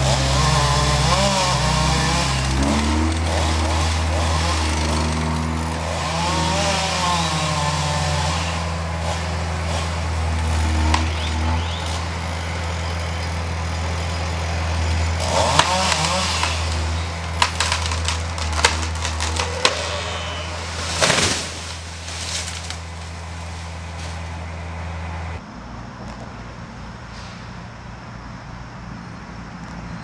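Chainsaw cutting through a large ash trunk at the felling cut, over a steady idling engine drone. From about 15 s in comes a run of sharp cracks, then a heavy thud a little after 21 s.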